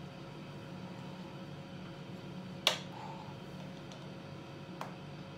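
Small hard clicks of makeup items being handled, a sharp one about two and a half seconds in and a fainter one near the end, over a steady low room hum.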